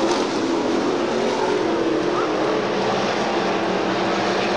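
A pack of IMCA stock cars running at speed, several engines droning together in a steady, unbroken noise.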